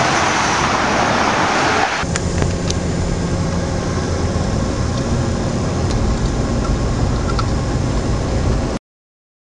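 Road traffic: cars running past along a busy road, a steady noise of engines and tyres. About two seconds in it changes abruptly from a bright hiss to a lower rumble, and near the end it cuts off suddenly.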